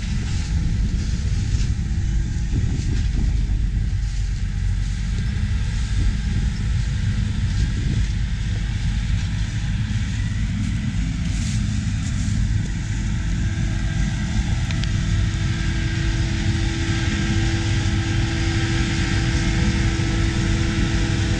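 Claas Jaguar 870 self-propelled forage harvester and New Holland tractor running together in the field: a loud, steady, heavy machine drone. A steady hum comes in a little past halfway.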